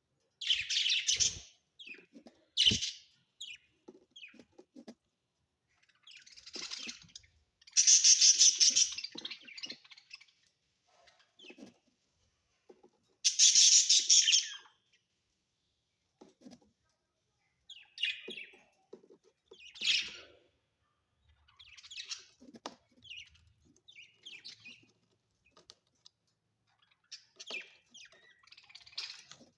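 Budgerigars chirping and chattering in short, scratchy bursts separated by brief pauses, the loudest bursts about 8 and 13 seconds in. A couple of low knocks come in the first few seconds.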